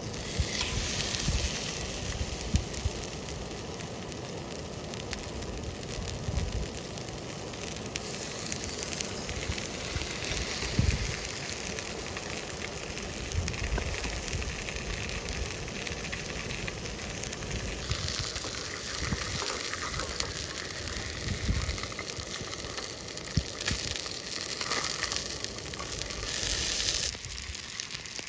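Food frying in a pan: a steady sizzling hiss with fine crackles and a few low knocks scattered through it.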